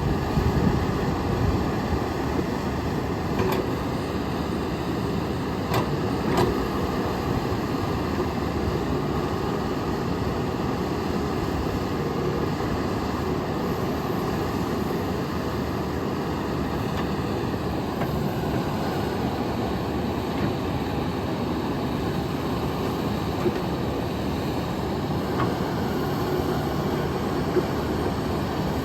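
John Deere 310K backhoe loader's diesel engine running steadily.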